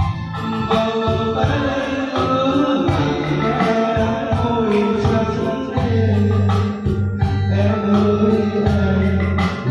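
A man singing a Vietnamese song into a karaoke microphone over a backing music track.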